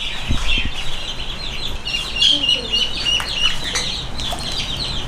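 Ducklings peeping: a steady stream of short, high-pitched calls, several a second, with a few low knocks near the start.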